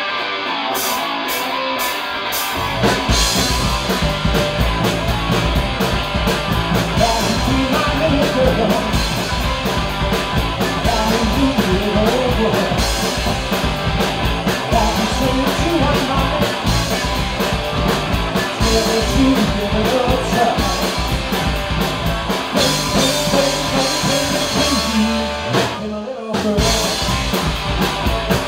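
Live rock band of two electric guitars, electric bass and drum kit playing a song. The opening is sparse, then the full band with bass and drums comes in about three seconds in. The band stops briefly about two seconds before the end, then carries on.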